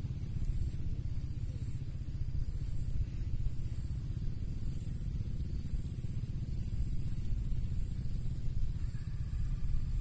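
Wind buffeting the microphone, a steady, unsteadily surging low rumble, with a faint steady high-pitched trill running underneath.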